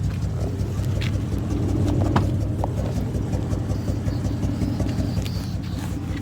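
Straight-piped 5.0-litre V8 exhaust running steadily with a low, pulsing note.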